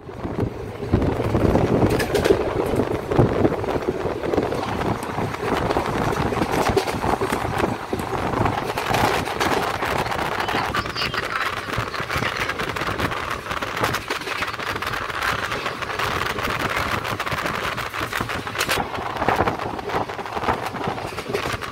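Steady running noise of a moving passenger train heard from inside the carriage, mixed with wind at the open window and frequent clicks and clatter from the wheels on the track.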